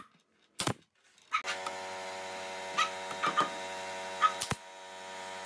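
SOYI pneumatic nail gun firing sharp shots as it drives nails through bent wood strips into a curved form: one right at the start, another under a second later, and a third near the end. A steady machine hum starts about a second and a half in.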